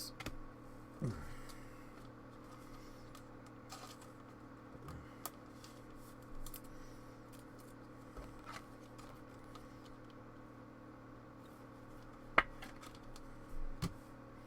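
Trading cards being handled and flipped through: faint flicks, slides and small clicks of card stock, over a steady low hum. One sharper click about twelve seconds in.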